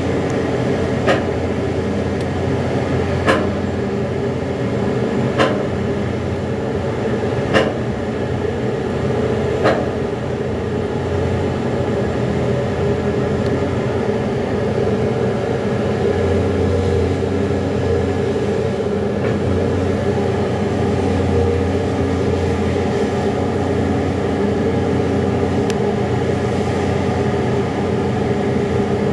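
Liebherr R 9250 hydraulic mining excavator's diesel engine running steadily under load with a deep, even hum. Five short sharp clicks come about two seconds apart in the first ten seconds.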